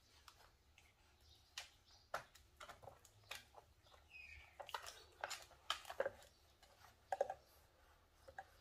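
French Bulldog and Chihuahua puppies scuffling: scattered clicks and scratches of their claws on the floor and the plastic potty-tray grate, with a brief high squeak about four seconds in.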